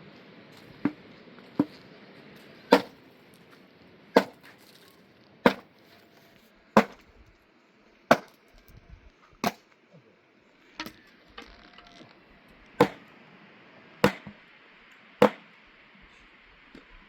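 Firewood being chopped: about a dozen sharp, evenly paced strikes, roughly one every second and a quarter.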